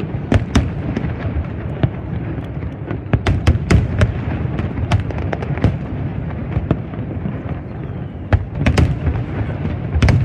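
Aerial fireworks shells bursting in quick, irregular succession over a steady low rumble. The bursts come thickest about three to five seconds in and again near the end.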